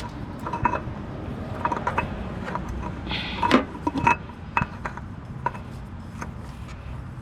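Scattered light clicks, clinks and scrapes of a new spin-on oil filter and tools being handled as the filter is put back on, with a short scrape and a louder knock about three and a half seconds in.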